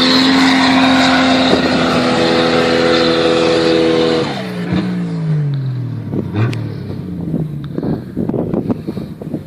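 Off-road 4x4 engine held at high, steady revs, then the revs fall away in a long drop about four seconds in. What follows is lower, rougher engine sound with scattered knocks and rattles.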